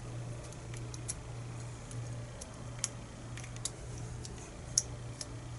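Faint, irregular small metal clicks and ticks of a shim being worked into a lock cylinder, with two sharper clicks about three and five seconds in, over a steady low hum.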